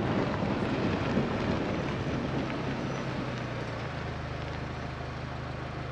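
Chevy Colorado ZR2 pickup truck driving: a rushing road and wind noise that eases off over the first few seconds, with a steady low engine drone coming through more clearly after about four seconds.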